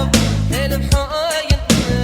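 Reggae music playing loud: a heavy bass line and a regular drum beat under a wavering sustained melody.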